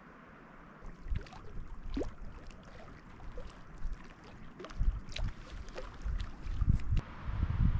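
Small waves lapping and splashing irregularly against the rocks at a lake's edge, starting about a second in, with gusts of wind buffeting the microphone in low thumps that grow stronger near the end.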